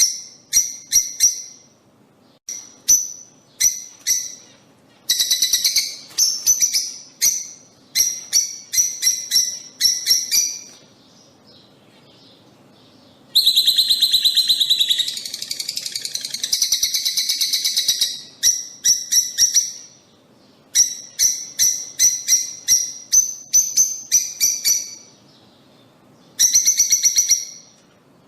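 Lovebirds calling: bursts of shrill, rapid chirps, each run lasting a few seconds, broken by short pauses.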